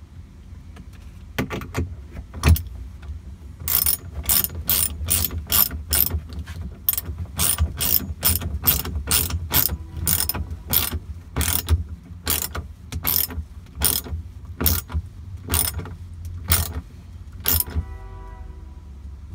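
A 7/16 socket ratchet clicking as its handle is swung back and forth to tighten a nut on a bolt. There are a few clicks at first, then an even run of about two to three a second that stops shortly before the end.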